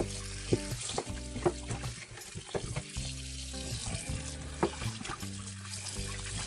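Tap water running into a stainless steel bowl and splashing around a whole raw chicken as it is rinsed by hand, with background music playing over it.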